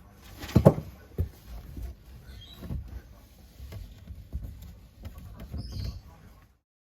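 A series of small irregular knocks and clicks with scraping in between, the loudest knocks about half a second in. The sound cuts off abruptly shortly before the end.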